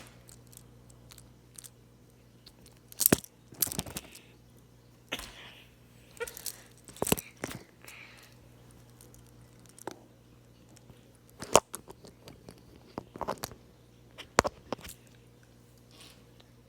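Toy trains being handled and set down: scattered sharp clicks and clacks, about ten of them, irregularly spaced with quiet between.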